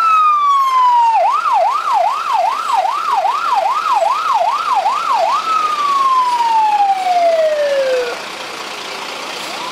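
Fire engine's electronic siren: a falling wail, then a fast yelp of about ten quick up-and-down sweeps, then one long falling tone that cuts off about eight seconds in.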